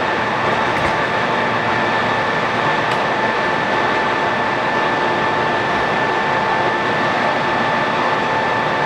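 ACER Dynamic 29 x 60 engine lathe running under power, its 15 HP main drive and headstock gearing giving a steady mechanical noise with an even high whine over it.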